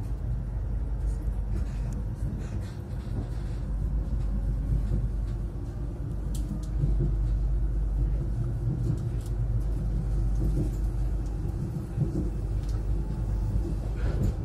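Steady low rumble inside the passenger car of a Stadler ESh2 double-deck electric train running between stations, with a faint steady hum.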